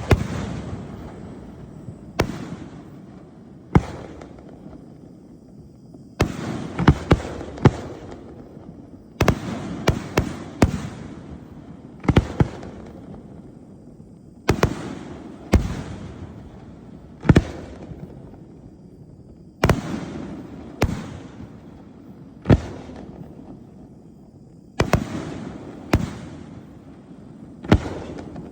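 A 50-shot string of 3- and 5-inch brocade crown display shells firing: sharp booms at irregular gaps of half a second to two seconds, sometimes two or three in quick succession. Each boom trails off in a fading rumble.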